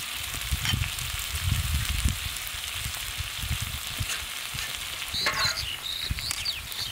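Whole rohu fish frying in oil on a large flat griddle, sizzling steadily, while a metal spatula scrapes and pats masala paste over it.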